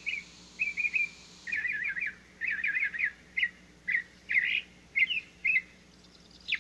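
A small bird chirping and twittering, a series of short, quick high phrases with brief gaps between them.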